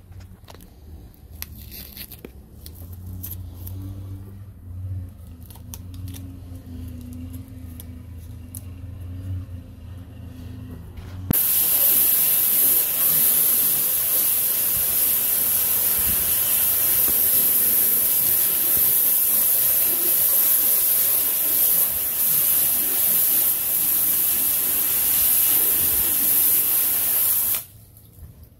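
A pressure washer wand spraying a high-pressure water jet against painted wooden siding: a loud steady hiss that starts suddenly about a third of the way in and cuts off abruptly near the end. Before the spray, a low steady hum.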